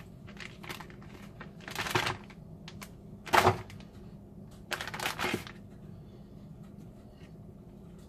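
Plastic zip-top bag rustling and crinkling as a raw chicken piece is pushed into it, with a few short knocks. The loudest knock comes a little before halfway, and it is quiet for the last couple of seconds.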